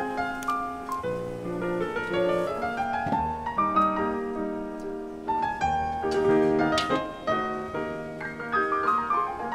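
Background piano music: a melody of changing notes over held low notes.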